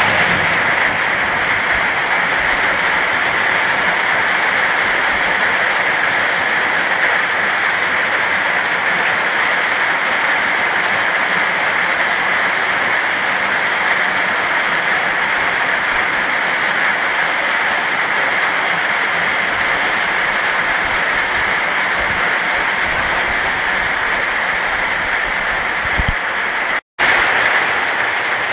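Heavy rain falling in a steady downpour. It cuts out for an instant near the end, then carries on.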